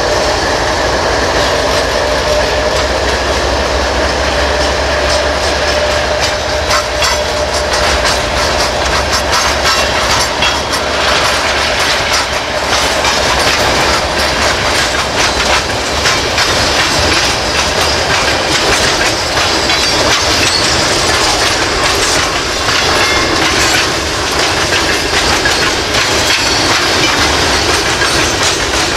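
Freight train passing: a GE ES44AC diesel locomotive working as a mid-train helper goes by first, its engine's steady hum and tones fading over the first dozen seconds. Then come the continuous rumble and clickety-clack of tank cars and covered grain hoppers rolling over the rail joints.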